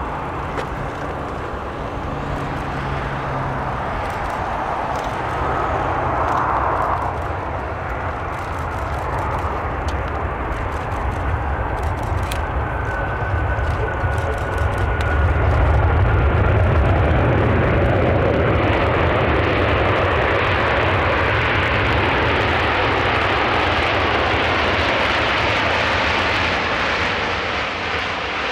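Airbus A380 landing, its four Rolls-Royce Trent 900 turbofans running through the last of the approach and touchdown. The engine noise grows louder about halfway through and stays loud as the jet rolls out along the runway.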